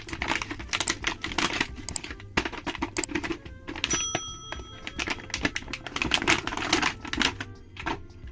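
Rapid, irregular clicking and crinkling of plastic toy packaging being handled, with a brief ringing tone about four seconds in.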